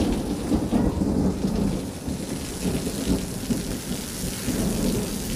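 Heavy rain falling on a concrete rooftop terrace, with a stream of water from a roof pipe splashing onto the floor, under a continuous low rumble.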